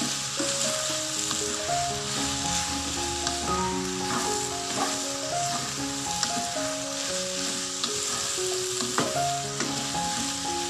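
Diced potatoes, okra, green chilies, onions and tomatoes sizzling as they fry in a nonstick pan, stirred with a wooden spatula that scrapes and now and then taps the pan. Soft background music with held notes plays underneath.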